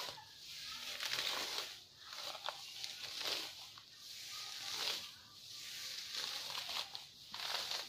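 Grass being pulled up by hand, with repeated rustling, tearing bursts roughly once a second.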